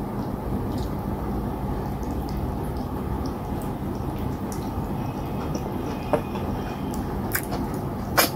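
Wet eating sounds of cassava fufu and slimy okra soup being scooped by hand and eaten, over a steady low hum. A few sharp wet clicks come in the second half, the loudest near the end.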